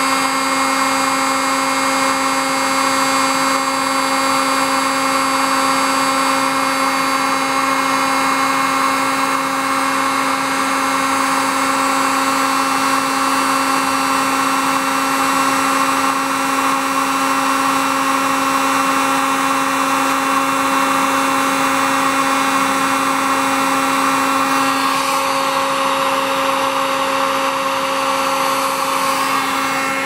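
Heat gun running steadily, a hum with a rush of air, as it blows hot air onto a solder-seal heat-shrink sleeve to shrink it and melt the solder into a wire splice. The tone shifts slightly near the end.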